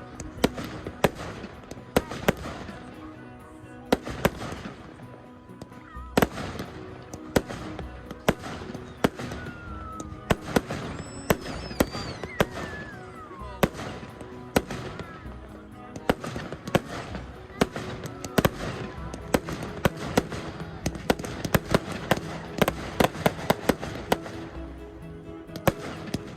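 Fireworks going off: many sharp bangs and crackles in quick succession, with a few whistling glides falling in pitch around the middle.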